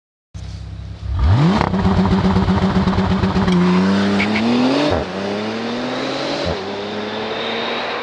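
Bentley Continental GT engine and exhaust: a low rumble, then the revs jump sharply about a second in. The pitch then climbs steadily as the car accelerates, with two short drops about five and six and a half seconds in as it changes gear.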